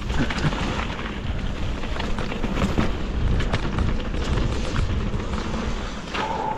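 Mountain bike riding down a rough dirt trail: wind and tyre noise rumble over the helmet-mounted camera while the bike rattles and clacks over bumps.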